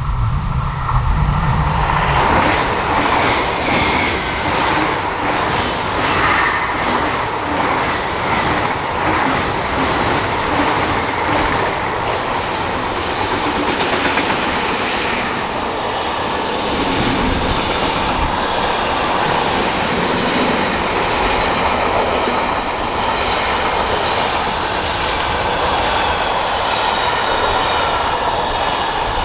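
Train passing close by on a mainline: a loud, steady rush of wheels on rail that builds up in the first couple of seconds and keeps going, with repeated knocks in the first part.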